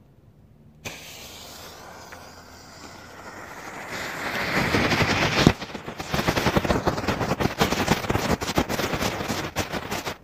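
Small Category 1 ground firework going off. It catches with a hiss just under a second in and swells to a loud spraying hiss. A sharp bang comes about five and a half seconds in, followed by dense rapid crackling.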